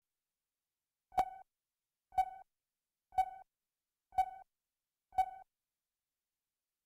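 Countdown leader beeps: five short beeps of one steady mid-pitched tone, one each second, each starting with a sharp click, ticking off the numbered countdown to the start of the programme.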